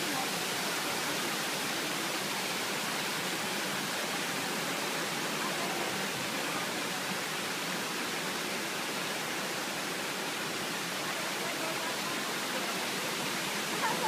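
Steady rush of water falling at Shiraito Falls, a broad curtain waterfall, heard as an even hiss without pauses.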